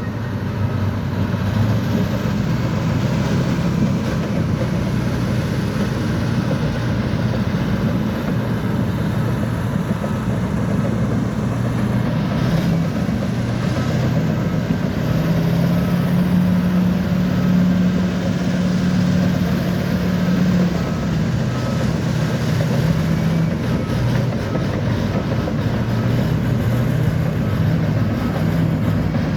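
Bulldozer's diesel engine running steadily under load, a continuous low drone that grows stronger for several seconds midway.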